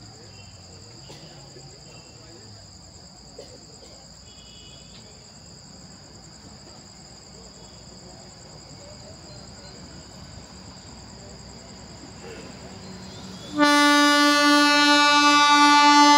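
Crickets chirping steadily at night. About thirteen and a half seconds in, the approaching MEMU electric multiple-unit train sounds its horn: one long, loud, steady blast that starts abruptly and is still going at the end.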